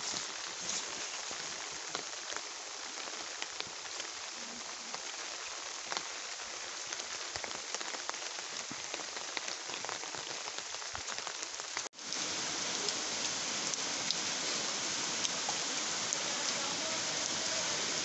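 Steady rain falling, with the patter of individual drops. It cuts out briefly about twelve seconds in, then comes back a little louder.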